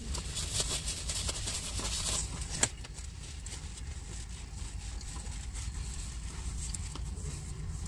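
Small rustles and clicks of takeout food and paper being handled while eating, mostly in the first few seconds, with one sharper click about two and a half seconds in. Under them runs a steady low hum of a vehicle cabin.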